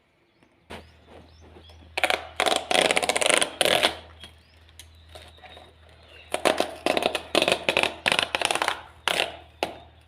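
Chip box packaging being torn open by hand: two spells of ripping and crackling, the first about two seconds in and the second about six seconds in, over a steady low hum.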